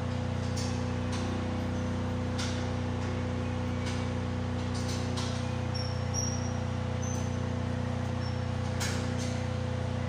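A steady machine hum with scattered faint clicks and ticks.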